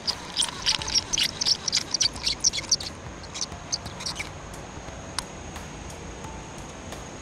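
Baitcasting reel being handled and cranked: a quick, irregular run of small clicks for about three seconds, then a few single clicks.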